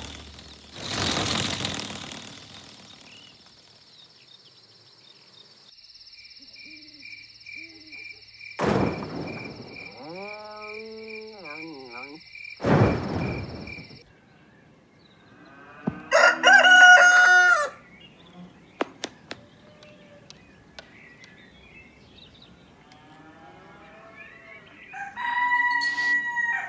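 Cartoon farm sound effects: a rooster crowing and chicken calls, separated by gaps, with two sharp knocks.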